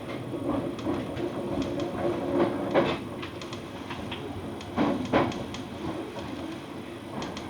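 Uchibo Line electric train running, heard from inside the carriage: a steady rumble and hum with a few sharp clicks and knocks from the wheels and car body, strongest about three and five seconds in.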